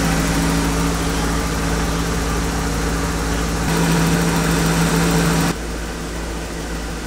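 A motorhome's engine idling steadily with an even hum, running again after standing unused for months. It is heard through the open engine cover inside the cab. The sound shifts abruptly about three and a half seconds in and drops in level suddenly about five and a half seconds in.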